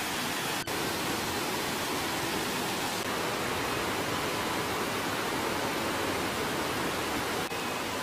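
Mountain stream rushing over rocks and small cascades, a steady rushing hiss that dips briefly twice, once under a second in and once near the end.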